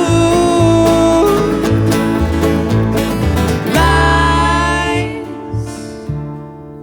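Background music: an instrumental break in a country song, guitar over a stepping bass line, ending on a held chord that fades away near the end.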